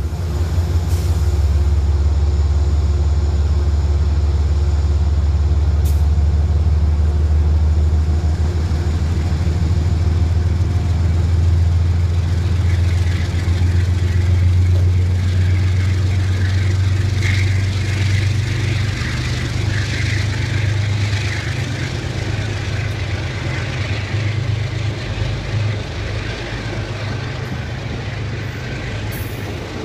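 Amtrak Empire Service passenger train departing. A deep, steady locomotive engine drone for the first dozen seconds fades, giving way to the rattling, crackling noise of the coaches' wheels on the rails as they roll past, and the whole sound slowly grows quieter.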